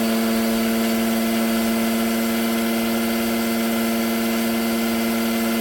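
Micro-hydro turbine and generator running steadily under load: an even machine hum on one pitch with higher overtones above it, without change.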